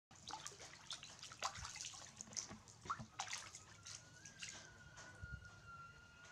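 Water splashing and sloshing in a plastic basin as a baby monkey swims and flips about in it, with a quick run of splashes over the first few seconds. A faint steady high tone sounds through the second half.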